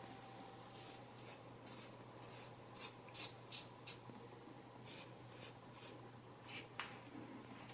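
Single-blade razor scraping through lathered stubble in short strokes, about a dozen quick faint scratches in two runs with a brief pause midway.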